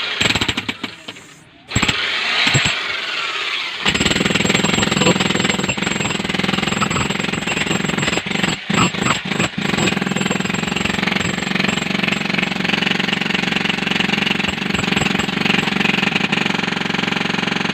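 Jackhammer breaking concrete, hammering rapidly and without pause over its motor's steady hum. It starts in fits over the first few seconds and runs steadily from about four seconds in.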